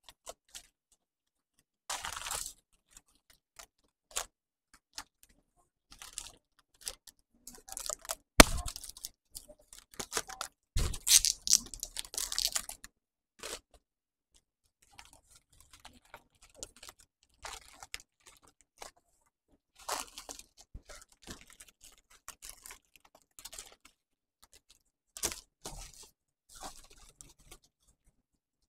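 Bouquet wrapping sheets crinkling and rustling in irregular bursts as they are folded and gathered around the stems by hand, with a sharp knock about eight seconds in and a thump and heavier crinkling around eleven seconds.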